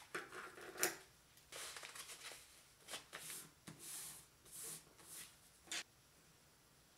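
Thin textured wrapping paper rustling as it is folded into a strip and smoothed flat on a table: a string of short crinkles, with a sharper crackle just under a second in.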